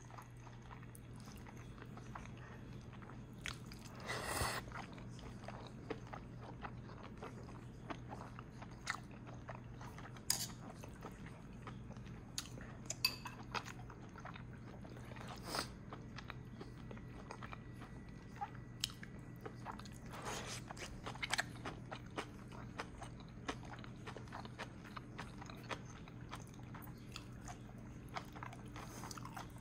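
Close-up eating sounds: chewing and biting, with scattered small clicks and smacks and a couple of louder ones, over a steady low hum.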